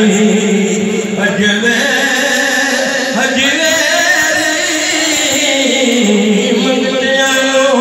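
A man's voice singing a devotional chant through a microphone and loudspeakers, in long drawn-out held notes.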